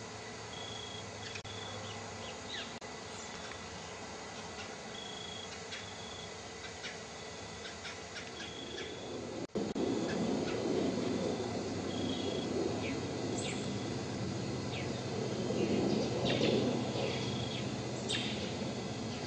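Outdoor ambience of short, high chirping notes repeating every second or two over a steady hiss. After a sudden break about halfway through, the hiss turns louder and fuller, more like rushing wind or rain.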